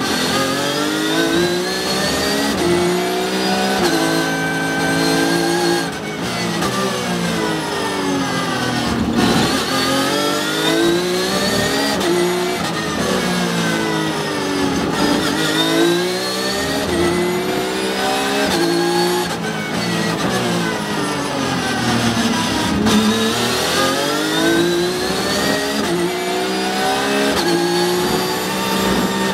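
Porsche 911 GT3 Cup race car's flat-six engine heard from inside the cockpit at racing speed, its pitch climbing through each gear and then sweeping down as it slows for corners, several times over.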